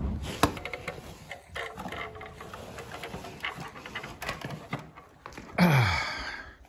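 Small clicks and rattles of a red metal cover and screwdriver being handled in a gloved hand. About five and a half seconds in comes the loudest sound, a drawn-out one that falls steadily in pitch for about a second.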